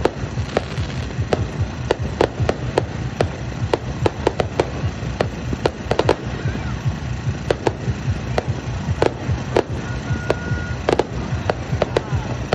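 Aerial fireworks going off: a rapid, irregular run of sharp bangs and crackles over a steady low hum.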